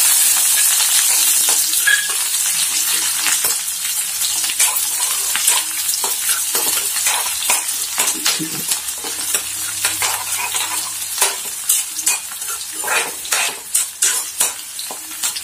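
Chopped onions sizzling in hot oil in a kadai, the hiss loudest at the start as they go in and easing as they fry. A steel ladle scrapes and clicks against the pan again and again as they are stirred.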